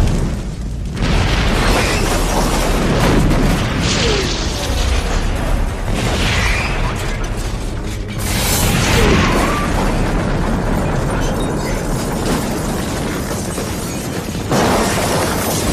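Movie sound effect of a bus crashing into a jet airplane and blowing up: a continuous roar of explosion and fire. Fresh blasts flare up several times, the strongest about eight and a half seconds in and again near the end.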